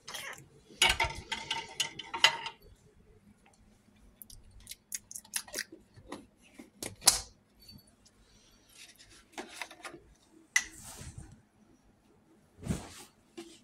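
Containers, a lidded pot and a milk jug being shifted about on the wire shelves of a refrigerator: a jangling metallic rattle about a second in, then scattered clinks and knocks, and a dull thump near the end.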